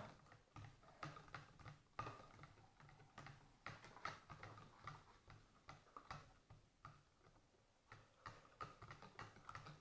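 Faint, irregular clicks and taps of spoons stirring sticky slime in small plastic cups, several a second.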